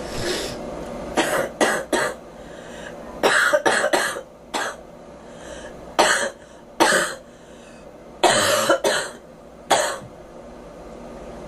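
A girl coughing in short fits: about a dozen sharp coughs, bunched in clusters of two or three with brief pauses between.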